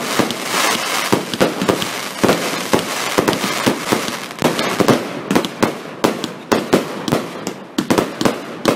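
Aerial fireworks display: a rapid, continuous barrage of bangs and crackling that, about halfway through, thins to separate sharp bangs with short gaps between them.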